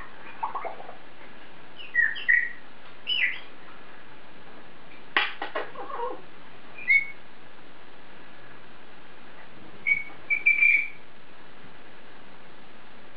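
African grey parrot whistling short chirpy notes in scattered clusters, with a quick run of clicks about five seconds in. A steady hiss lies underneath.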